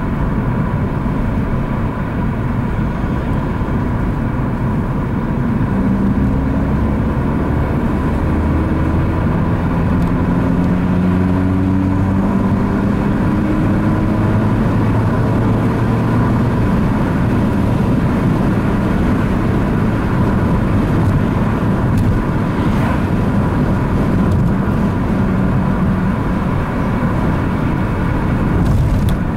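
Opel Astra Coupe driving at road speed, a steady mix of engine and tyre noise. The engine note climbs in pitch a few times in the first half as the car accelerates.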